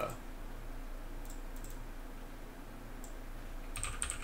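Computer keyboard typing: a few scattered key clicks, then a quick run of keystrokes near the end.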